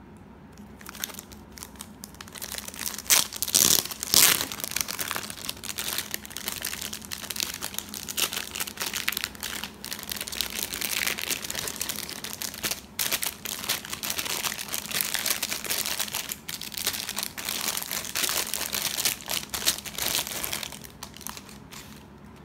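Clear plastic packaging bag crinkling as hands handle it and pull a pouch out of it. The crackle goes on almost without a break and is loudest about three to four seconds in.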